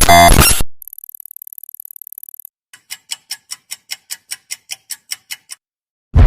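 A string of separate sound effects. A loud noisy burst cuts off under a second in, then a fast, high, buzzy ticking lasts under two seconds, then about a dozen evenly spaced clock-like ticks come at about four a second. Near the end a sudden loud hit with a deep rumble begins.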